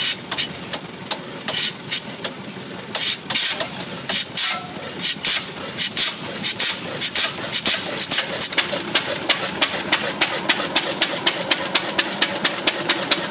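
Wickström 10–12 hp stationary engine catching after being hand-cranked by its flywheel. It fires in sharp separate beats, uneven at first, that quicken to a steady run of about four or five a second.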